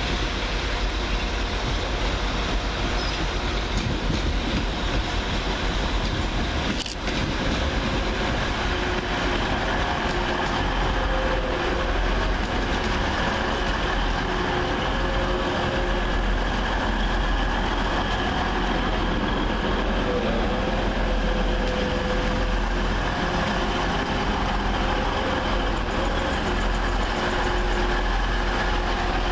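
A pair of coupled Class 185 diesel multiple units running at the platform, with steady engine and rail noise and a few held tones over it. A short click about seven seconds in.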